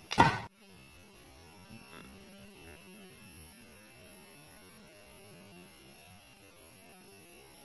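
Homemade PVC-pipe combustion sound gun, fuelled with body spray and plugged with paper, going off once with a single loud bang just after the start. After it there is only a faint steady electrical hum.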